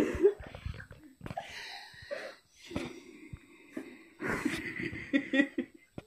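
Boys laughing hysterically: wheezing, breathless laughter with gasps, then a run of quick pitched laughs from about four seconds in. A sudden loud bump right at the start.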